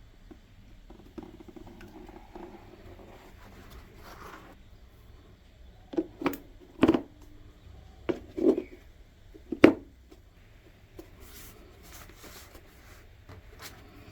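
A quick series of about six sharp clicks and knocks from small parts being handled, bunched between about six and ten seconds in, over faint room noise.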